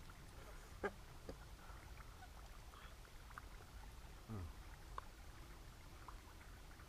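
Quiet background with a few faint clicks of forks on plates as two people eat. A short low hum of a voice comes about four seconds in.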